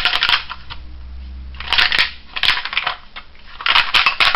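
Vintage plastic toy being handled and jiggled as its wheel is worked in the wheel arch: clicking, jangling clatter of plastic parts in two bursts, the second starting in the last second.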